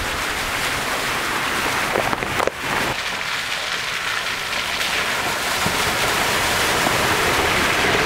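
Jeep Wrangler's tyres splashing and churning through a muddy puddle, spraying water, with the engine running low underneath.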